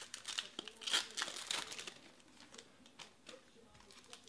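Foil wrapper of a trading-card pack crinkling and tearing as it is ripped open by hand. The crinkling is densest in the first two seconds, loudest about a second in, then thins to a few light crinkles.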